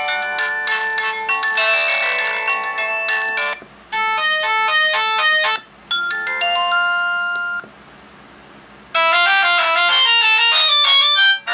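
A voiis V6 senior mobile phone plays a series of its ringtones through its loudspeaker: four different short electronic melodies, each cut off abruptly after a couple of seconds, with brief pauses between them.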